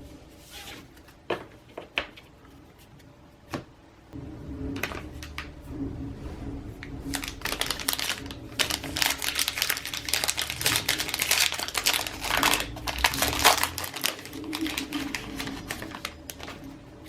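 A plastic-wrapped trading card pack is handled and torn open: a few separate clicks, then about four seconds in a long run of rapid, dense crinkling and crackling of the wrapper.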